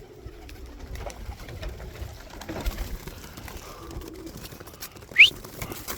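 Domestic pigeons at a loft cooing softly, with scattered small taps and clicks. About five seconds in there is a single short, sharp squeak that rises in pitch.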